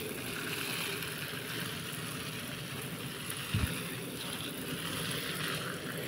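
Water spraying from a shower-head nozzle onto a potted plant's soil and branches, a steady hiss, with one dull knock about three and a half seconds in.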